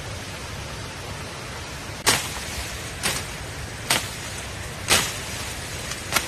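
Firewood being struck: five sharp knocks, about a second apart, over a steady hiss.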